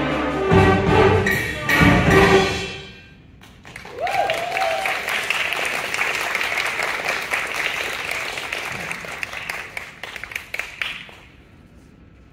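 A school concert band ends a piece on a held chord with a few loud final hits. The audience then applauds for about seven seconds, with a single cheer early in the clapping, and the applause dies away near the end.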